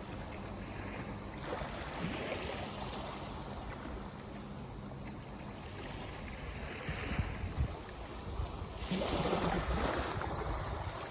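Sea waves washing up and drawing back at the shoreline, with wind buffeting the microphone as a low rumble; a bigger wave washes in about nine seconds in.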